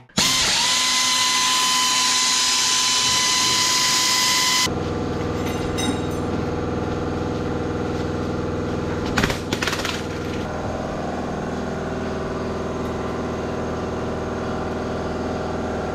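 A power tool runs at a steady whine for about four and a half seconds and then stops abruptly. After it, a steady mechanical hum carries on, with a few short metal clanks about six seconds in and again around nine seconds in, as parts come off the split tractor's clutch end.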